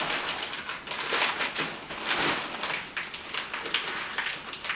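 Clear plastic mattress wrap crinkling and rustling in irregular crackles as it is handled and pulled by hand.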